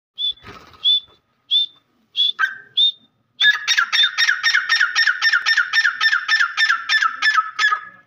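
Grey francolin calling: five short, sharp notes about two-thirds of a second apart, then, a little past three seconds in, a fast run of loud repeated notes, about four a second, that carries on without a break.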